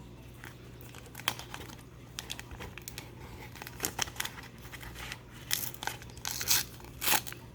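A McDonald's Happy Meal Pokémon card pack's packaging being opened: irregular crinkling and tearing, with a few louder rips and crackles in the second half.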